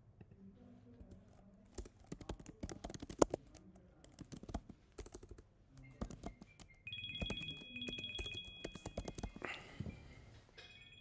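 Typing on a computer keyboard: irregular runs of key clicks, with one louder keystroke about three seconds in. A faint high warbling tone comes and goes in the background over the second half.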